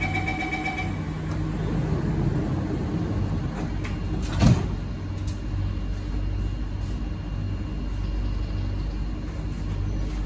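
Inside an MRT train carriage, the door-closing chime tones end about a second in. About four and a half seconds in there is one loud knock. The train's steady low rumble and motor hum carry on as it moves off from the station.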